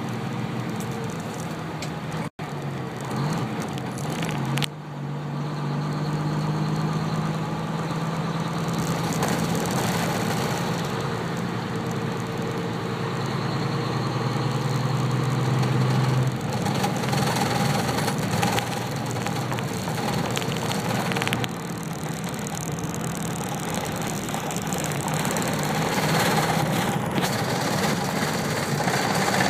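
Vehicle engine and road noise heard from inside the cab in slow traffic, with a steady low hum that changes about sixteen seconds in. The sound drops out for a moment a couple of seconds in.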